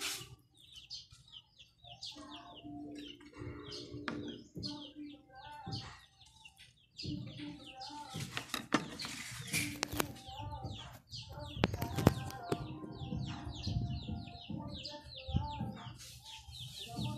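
Small birds chirping busily: rapid runs of short, high chirps, several a second. A few sharp clicks of metal utensils cut in among them.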